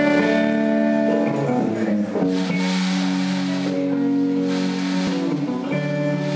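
A band playing during a sound check: held chords that change every second or two, with a guitar among the instruments, and a couple of brief hissy washes on top.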